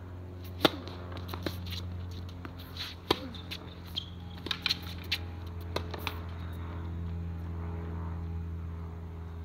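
Tennis ball struck by racquets during a rally: two sharp hits about two and a half seconds apart, with lighter taps and clicks between them, over a steady low hum.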